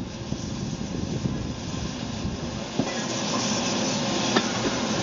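C36-class steam locomotive 3642 standing on a turntable, steam hissing from around its cylinders and growing louder about halfway through. Two sharp metallic clanks come through, one near three seconds in and a louder one near the end.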